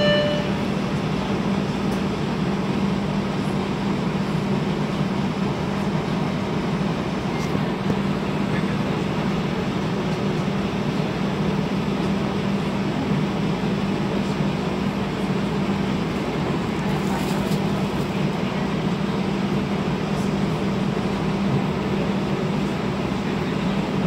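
Steady hum inside a TTC streetcar standing or creeping along, with street traffic passing outside. A short tone sounds right at the start.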